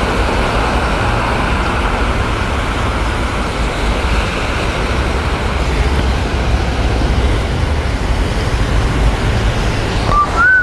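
Motorcycle riding in traffic in the rain: a steady rush of wind and road noise over a low engine rumble. A short wavering high tone sounds near the end.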